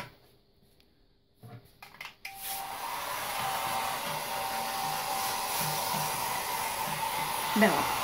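Handheld hair dryer switched on about two seconds in, then running steadily: an even rush of air with a faint steady whine.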